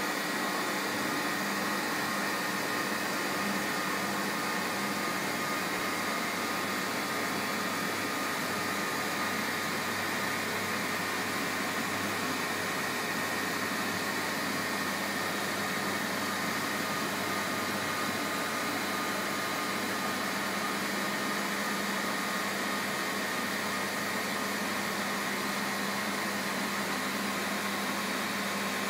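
MAHO MH 700 C CNC milling machine running: a steady mechanical hum and hiss with a few constant whining tones that do not change.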